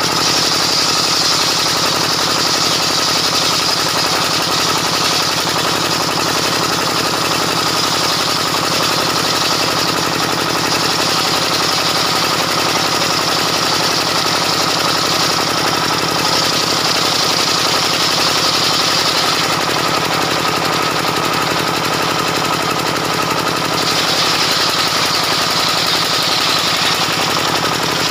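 Homemade bench circular saw with a 24-inch blade ripping a log lengthwise into planks. It runs loud and steady with a rapid pulse underneath, and a high cutting whine swells several times as the log is pushed through the blade.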